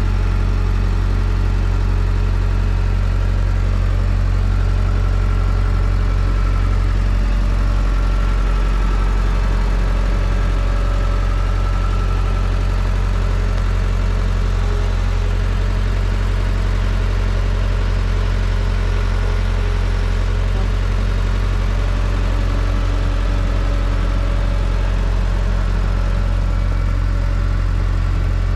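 A vehicle engine running steadily at an even, low speed, with no revving.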